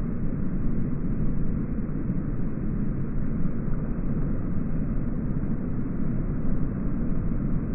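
Thunderstorm sound: a steady low rumble with a hiss over it, cutting off abruptly near the end.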